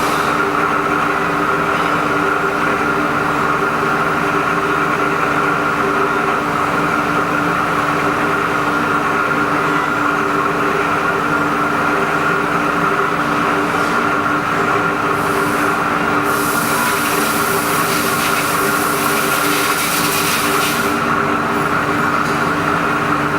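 Haas EC-400PP CNC horizontal mill running, a steady machine hum with a constant whine over it. From about fifteen seconds in, a hissing rush is added for several seconds.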